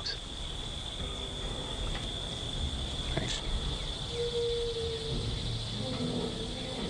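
Insects trilling steadily at one high pitch in the background, with a brief faint click about three seconds in.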